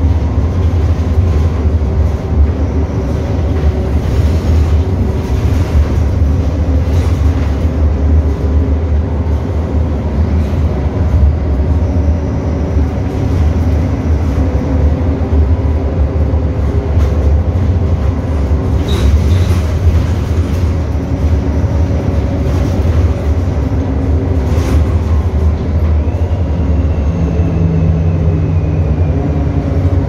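Mercedes-Benz OM 926 LA six-cylinder inline diesel of an O-500U BlueTec 5 city bus, running steadily with a deep, even rumble and a few light knocks.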